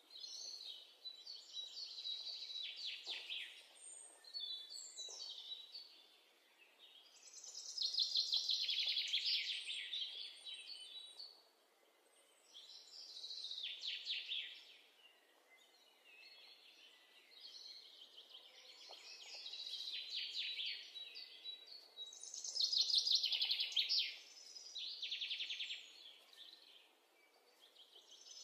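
Birdsong: phrases of rapid, high chirping trills and warbles a few seconds long, repeating with short pauses between them.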